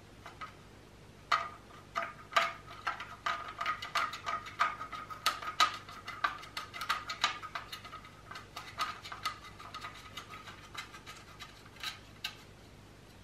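Thin embossed metal heat shield crinkling and clicking as it is handled and pressed into place on a finned aluminium transmission oil pan. Rapid, irregular crackles begin about a second in, thin out after about ten seconds, and a couple more come near the end.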